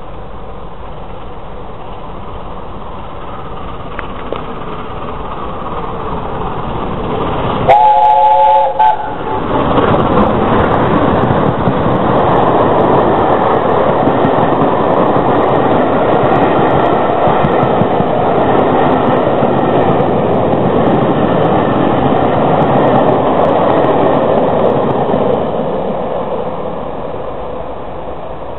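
Peppercorn A1 steam locomotive 60163 Tornado accelerating through on the fast line with a Pullman train. About 8 s in there is a one-second blast of a chord whistle, then the engine and coaches pass loudly for some fifteen seconds before fading away.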